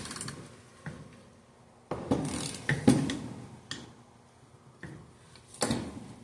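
Hand tools knocking, clinking and scraping against the engine during piston and connecting-rod fitting. A busier spell of rattling with a couple of sharp knocks comes about two to three seconds in, and a louder knock comes near the end.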